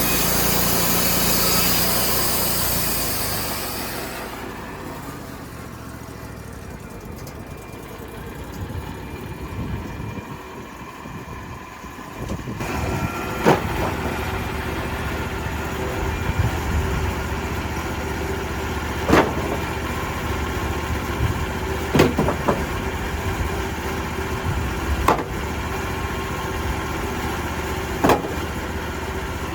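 A band sawmill blade cutting through oak with a high hiss that dies away about four seconds in. After a quieter spell, an engine starts running steadily about twelve seconds in, with a sharp knock every few seconds.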